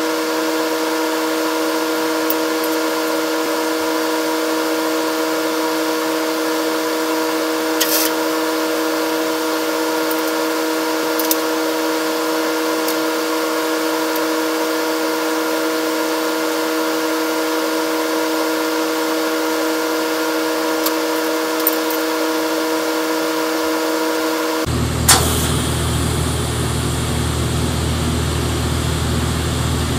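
Steady electrical hum with several fixed tones from the TIG welder and shop. About 25 s in, a sharp crack as the high-frequency start strikes the TIG arc, then the low, steady buzz of the arc as weld is laid onto a steel shaft to build it up.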